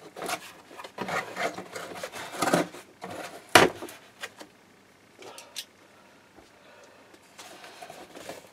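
Long cardboard shipping box being opened by hand: cardboard flaps rubbing and scraping, with one sharp knock about three and a half seconds in, then quieter handling.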